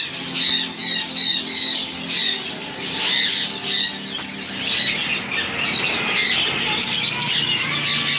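Caged birds squawking and calling over and over, several short, shrill calls a second.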